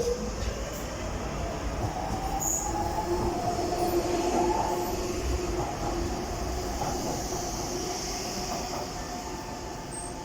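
Docklands Light Railway train pulling away, its traction motors giving a whine that rises in pitch as it starts off, then holds several steady tones and slowly fades.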